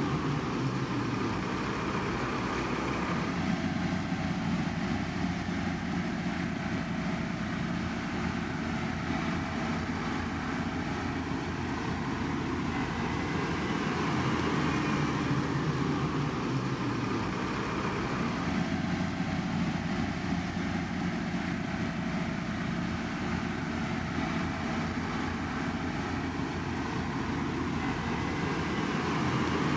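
Heavy construction machinery running: a steady engine drone whose tone shifts twice, about fifteen seconds apart.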